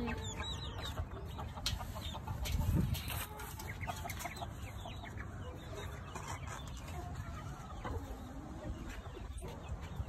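Backyard chickens clucking, many short scattered calls.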